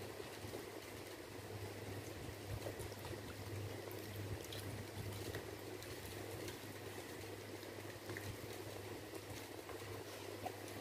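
Fingers mixing and squeezing rice into thin curry gravy on a steel plate: soft wet squishing with faint scattered clicks, over a steady low hum.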